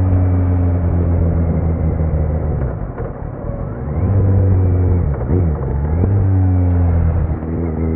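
2018 Kawasaki Z900's inline-four engine through a Leo Vince muffler with no dB killer, running at steady revs. It eases off about three seconds in, and about five seconds in the revs dip sharply and climb straight back before holding steady again.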